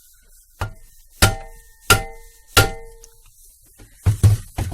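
Sharp metal knocks with a short ringing tone: four about two-thirds of a second apart, then three in quick succession near the end. This plausibly comes from working a Lada Vesta front shock-absorber strut that is dead and has no travel.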